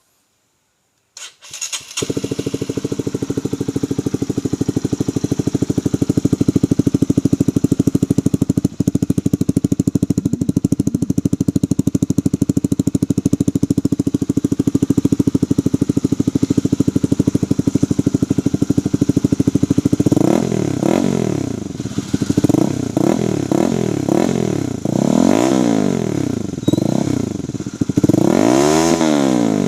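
Honda CBR150R single-cylinder motorcycle engine breathing through an SC Project exhaust with a dB killer fitted. It starts about a second in and idles steadily, then in the last ten seconds it is revved in a string of short blips, the biggest near the end.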